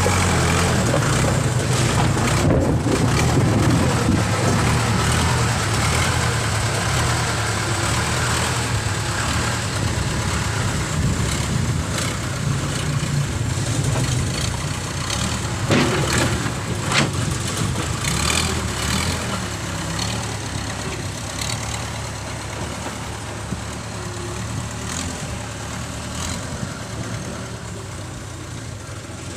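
Heavy machinery engine running steadily. There are two sharp knocks about sixteen and seventeen seconds in, and the sound slowly grows quieter toward the end.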